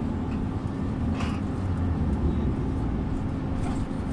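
Volvo Carrus City bus running along, heard on board: a steady low engine and drivetrain drone with a held hum. Two short higher rattling noises come about a second in and near the end.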